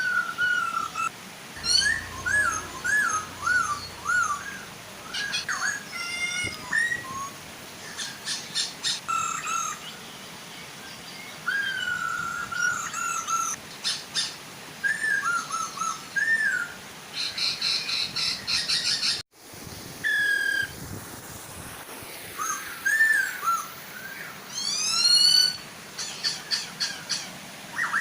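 Poksay hongkong (Chinese hwamei) singing a run of loud, varied whistled phrases, slurred notes and rapid trills, over the steady rush of a waterfall. The song drops out for an instant about two-thirds of the way in.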